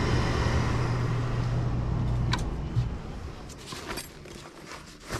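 Gas furnace's induced-draft inducer motor running with a steady hum and rush of air. The gas valve has no power yet, so the burner does not light. A little over two seconds in, the hum cuts off and the fan winds down, with a few light clicks.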